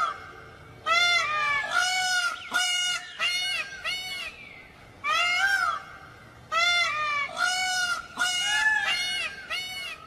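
Peacock calling: a quick run of loud calls, each arching up and then down in pitch, about eleven in all, in three groups with short pauses between.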